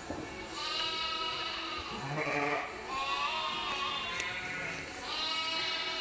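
A flock of ewes and lambs bleating, several calls overlapping one after another.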